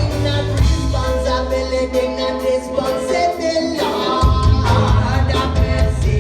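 Reggae band playing, with several voices singing in harmony over bass and drums; the bass and drums drop out about a second in and come back in at about four seconds.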